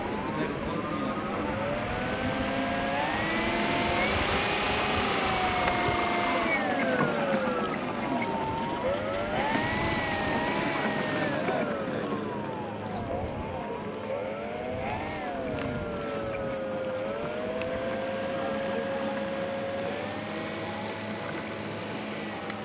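Electric motor and propeller of a radio-controlled F4U Corsair model running on the ground, its whine rising and falling in pitch several times.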